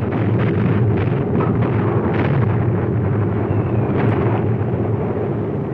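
Steady drone of heavy bomber engines with a rapid run of muffled explosions from bombs bursting on the ground below, thinning out over the second half.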